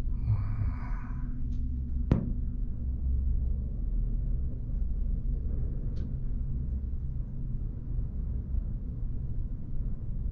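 Steady low rumble on an open chairlift ride, with a sharp click about two seconds in and a fainter click near six seconds.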